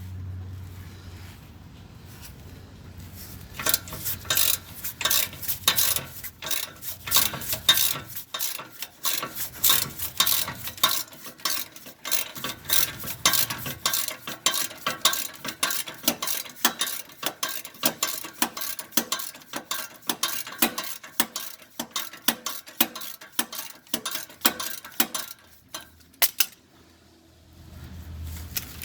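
Hand ratchet wrench clicking in quick runs of metallic ticks as it is worked back and forth to turn a manifold bolt, with small metal-on-metal clinks. The clicking starts a few seconds in and stops a few seconds before the end.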